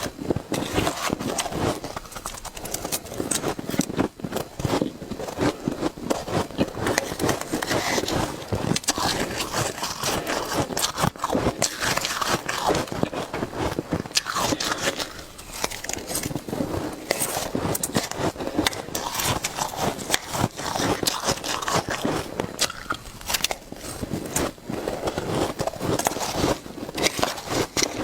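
Close-miked biting and crunching of shaved ice, a dense run of crackling crunches with short pauses about 4, 15 and 23 seconds in.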